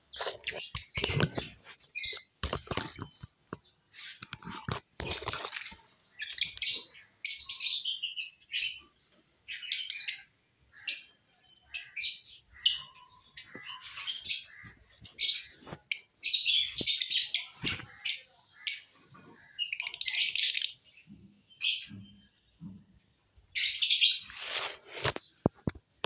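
Lovebirds chattering in short bursts of shrill, high chirps, coming every second or two, with a few sharp clicks in between.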